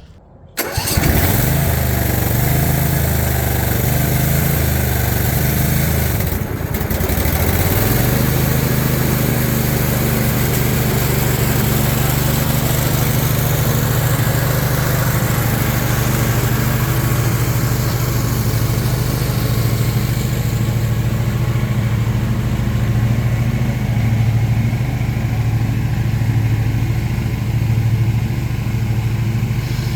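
Briggs & Stratton Intek V-twin engine on a zero-turn mower running, coming in after a brief gap. Its speed wavers for the first few seconds, dips briefly about six seconds in, then settles at a steady, higher speed. The owner says the engine is missing.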